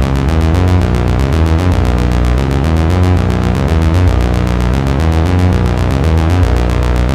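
Behringer Crave analog monophonic synthesizer playing a fast step-sequenced riff: a run of short, even notes with the pitch stepping up and down over a low bass line.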